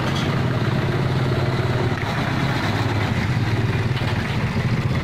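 Diesel engine of a Mitsubishi Canter light truck running at low, steady revs as the truck creeps slowly forward.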